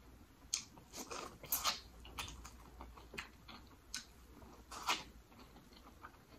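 Close-up mouth sounds of a person biting and chewing sauce-coated corn on the cob: irregular sharp clicks and smacks, a few a second, loudest about a second and a half in and again near five seconds.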